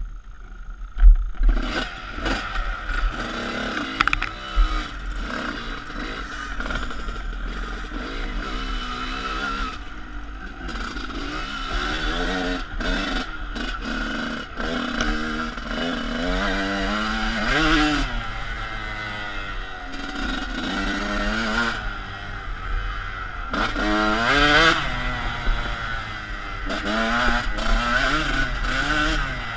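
Enduro dirt bike engine revving up and down over and over as the bike is ridden along a rough trail, with loud sharp knocks and clatter about a second in. Heard from a helmet-mounted camera.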